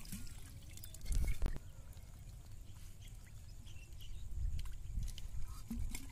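Small scattered splashes and knocks from hands working a clay pot over a shallow muddy puddle, with a dull low thump about a second in.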